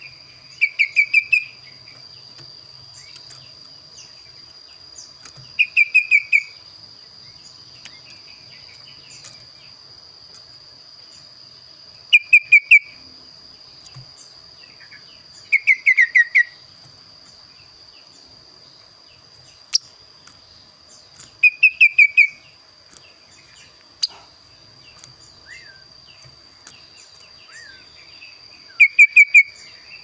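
Caged kaso-kaso bird calling: six loud phrases, each a quick run of five or six short, slightly falling notes, spaced several seconds apart.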